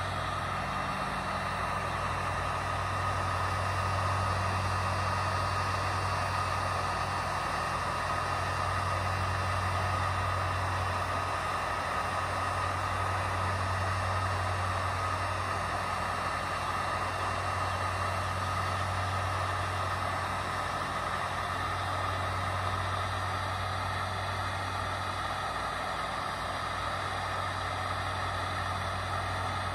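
Electric heat gun running steadily, its fan blowing hot air, with a low hum that swells and fades every few seconds.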